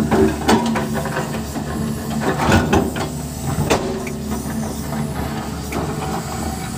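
Sunward crawler excavator's diesel engine running steadily while its bucket scrapes and drags across soil and rock, with scattered knocks and clatter of stones, most of them in the first four seconds.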